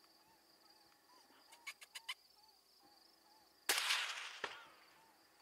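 A few faint clicks, then a single suppressed 6.5 Creedmoor rifle shot a little past halfway, its report echoing away over about a second, with a second short sharp crack shortly after.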